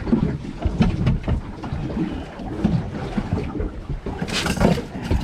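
Wind and sea noise aboard a small fishing boat in rough weather: an uneven low rumble, with a brief louder rush about four and a half seconds in.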